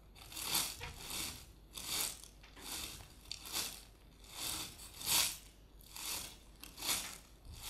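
Foley footsteps made by hand with a household object: a slow, even walk of short steps, about one a second.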